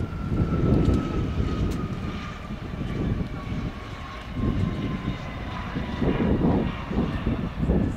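Raytheon Hawker 400XP business jet's twin turbofans (Pratt & Whitney JT15D) running at power as the jet rolls down the runway, most likely its takeoff roll: a whine sliding slowly down in pitch over a heavy, uneven rumble.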